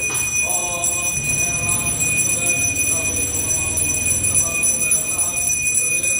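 A hand bell rung continuously, its high ringing tones held steady throughout, with voices underneath.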